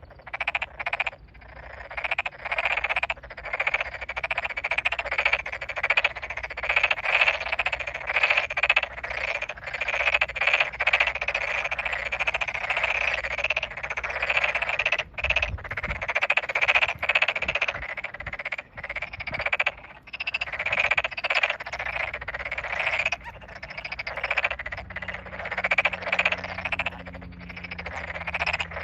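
A chorus of Tokyo daruma pond frogs calling: many dense, overlapping croaking trills that run on with only brief pauses.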